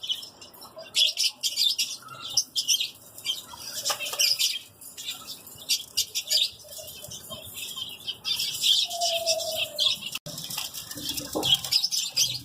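Many small caged birds chirping in quick, overlapping high-pitched calls, with wings fluttering in the cages. About nine seconds in there is one short falling note.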